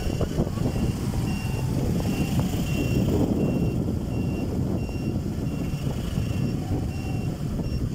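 Steady low rumble of slow-moving motor traffic, with a high electronic beep repeating about twice a second.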